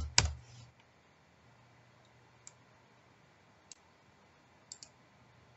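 Faint computer mouse clicks: single clicks spaced about a second apart, then a quick double click near the end.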